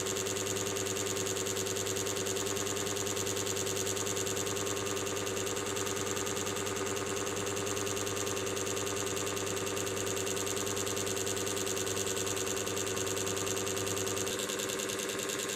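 Steady mechanical hum with a fast, even buzz. Its low hum drops out about a second before the end, leaving a thinner buzz.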